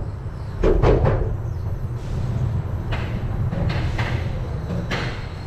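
Rocky Mountain Construction coaster train rolling slowly along the final brake run into the station: a steady low rumble of wheels on the track, a burst of heavy clunks about a second in, then several sharp knocks.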